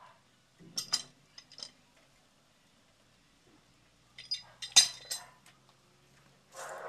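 Sharp metallic clinks and taps from plumbing fittings being handled on a metal water pipe: a cluster about a second in and a louder one around four to five seconds in. A steady buzz starts just before the end.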